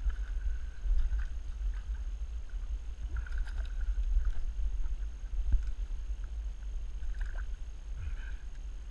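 Steady low rumble of wind and water noise on a waterproof action camera at a river's edge, with a few brief high chirps and faint clicks scattered through.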